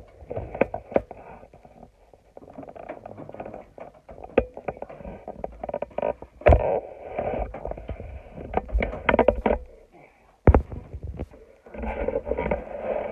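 Hard plastic knocks and clicks as a sewing machine's extension table is handled and fitted onto the machine, with low, indistinct talking underneath.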